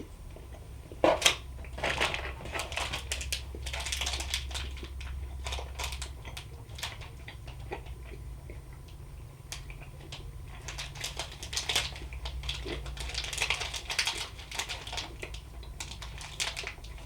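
Plastic snack packaging being handled and crinkled: dense crackling clicks in two spells, about a second in and again near the middle, over a faint steady hum.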